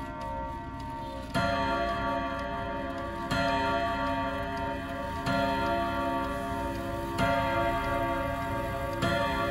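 ODO 54/8 French wall clock's eight-hammer rod-gong block (seven steel rods and one brass rod) striking. Five ringing strokes come about two seconds apart, each sounding several rods together, over the clock's ticking.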